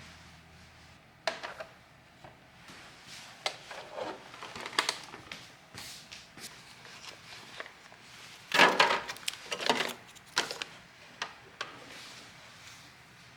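Household items being handled: a run of light clicks, knocks and short rustles as things are picked up and set down, the loudest a longer rustling scrape about nine seconds in.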